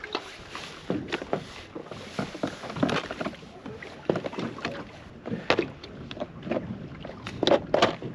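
Irregular knocks and clunks aboard a fishing boat, as gear is handled and people move about on the hull, with the loudest two knocks near the end.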